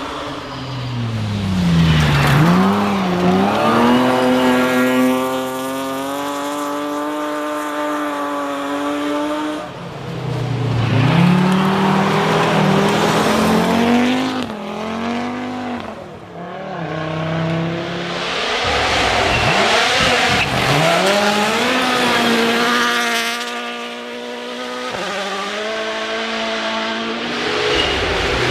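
Rally cars driving a stage at full throttle, engine pitch climbing and then dropping with each gear change, in about three long stretches of hard driving.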